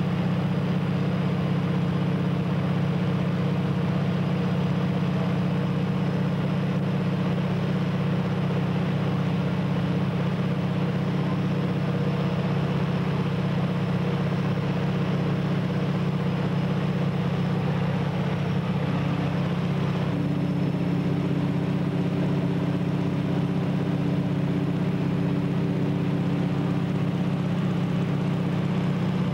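A light floatplane's piston engine and propeller droning steadily in cruise, heard from inside the cabin. The tone shifts slightly about two-thirds of the way through.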